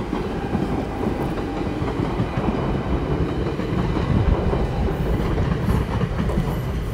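Double-deck Intercity train running past, a steady low rumble of wheels on the track.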